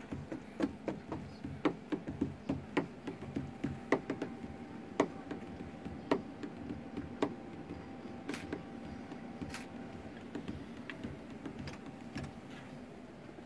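Scattered sharp taps and knocks in a small room, several a second for the first few seconds, then about one a second, thinning out before the end. A faint steady tone runs through the middle.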